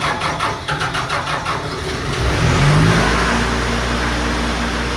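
FMC M10000 ground air-conditioning unit's engine being started: rapid rhythmic cranking for the first second and a half or so, then the engine catches, rises in pitch and settles into a steady run.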